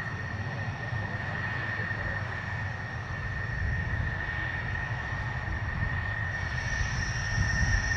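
McDonnell Douglas F-4 Phantom II's twin General Electric J79 turbojets at taxi power: a steady high whine over a low rumble. A second, higher whine joins about six seconds in.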